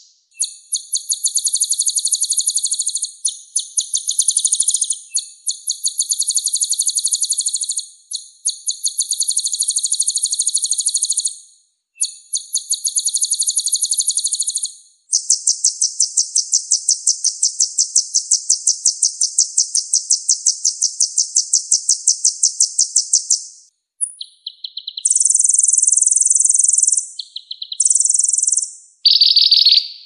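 Songbird singing very fast, high-pitched trills in phrases of a few seconds each, with short gaps and abrupt cuts between them. One unbroken trill lasts about eight seconds in the middle, and shorter phrases at different pitches follow near the end.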